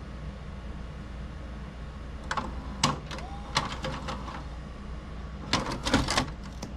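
Memorex 4-head VCR ejecting a VHS tape: under a steady low hum, the tape mechanism makes a series of sharp mechanical clicks and clacks from about two seconds in, with a brief whirr, and a quick flurry of clacks near the end as the cassette comes out. The eject works this time, on a deck that has been eating tapes.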